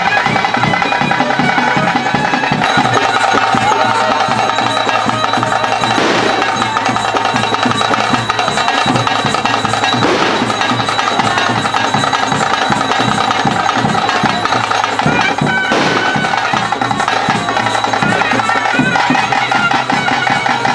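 Traditional ritual band music: a shrill double-reed pipe plays a wavering melody over a steady held drone, while drums and cymbals keep up a dense beat.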